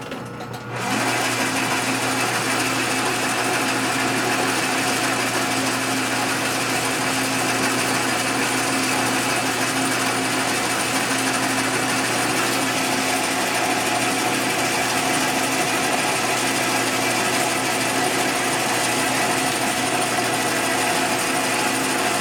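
Gear-head metal lathe switched on about a second in and then running steadily, a constant whir with a hum underneath, while it takes a light cut across the face of the part.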